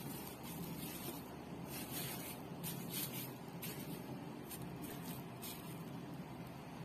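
Thin plastic sheet crinkling and rustling as it is spread and smoothed over a baking tray of shaped bun dough, in scattered crackles that are busiest in the middle.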